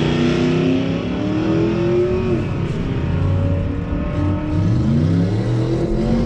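Drag-racing cars accelerating hard down the strip. The engine note climbs in pitch, drops at a gear change about two and a half seconds in, then climbs again near the end.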